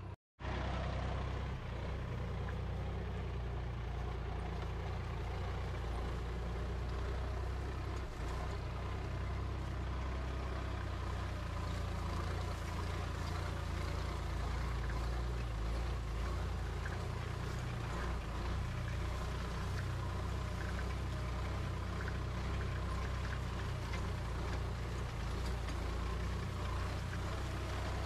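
Farm tractor's diesel engine running steadily under load as it pulls a tine cultivator through the ploughed field.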